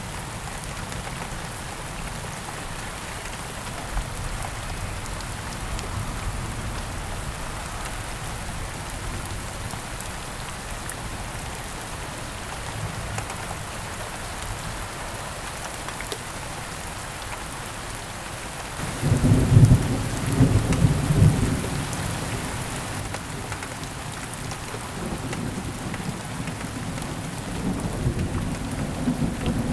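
Steady rain falling, with a loud rumble of thunder breaking about two-thirds of the way through and a fainter rumble building near the end.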